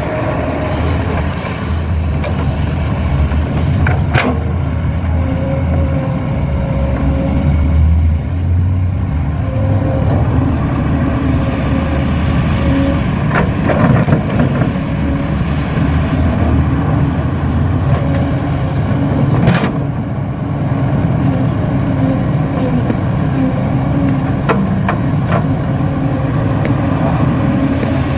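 Radio-controlled model excavator digging and loading soil into a model dump truck: a steady engine-like drone with a whining motor tone that comes and goes as the arm works, and a few sharp clicks.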